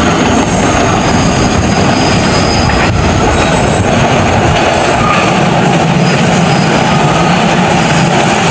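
Train running on the track: a loud, steady rumble and rush of noise that does not let up, with faint high ringing tones over it.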